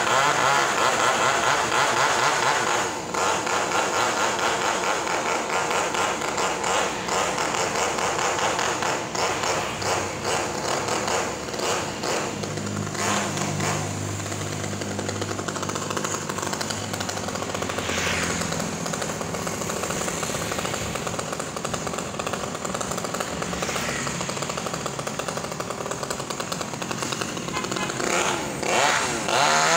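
Chainsaw running and cutting into mango wood, its engine rising and falling in pitch; it revs up again near the end.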